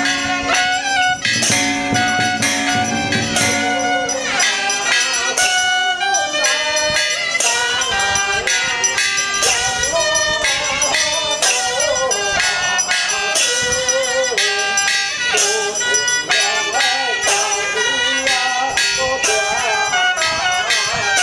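Traditional Chinese Taoist ritual music: a wavering melody over quick, repeated percussion strikes that go on without a break.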